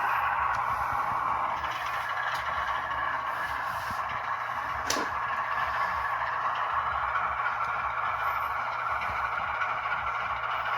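HO-scale model diesel locomotive running on track, its DCC sound decoder playing a steady GE ES44 diesel engine sound through the model's small speaker, with a sharp click about five seconds in.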